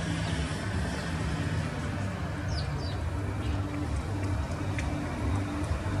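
Steady low rumble of a large vehicle's engine running close by, with a few short, high bird chirps about two and a half seconds in.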